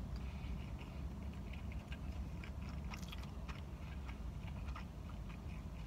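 Close-up mouth sounds of chewing a bite of bacon and egg sandwich with lips closed: faint, irregular wet clicks, a few bunched together about three seconds in, over a low steady hum.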